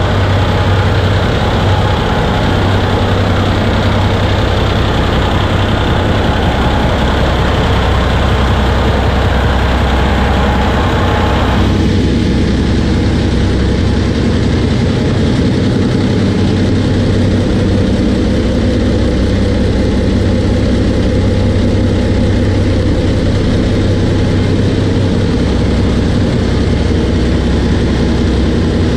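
Two Yuchai YC6T540C six-cylinder turbocharged marine diesel engines idling steadily in a ferry's engine room, a loud, even drone. The higher hiss drops away about twelve seconds in.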